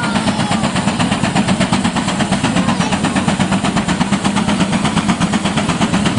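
Case steam traction engine working hard under load, its exhaust chuffing up the stack in a fast, even beat of about five chuffs a second.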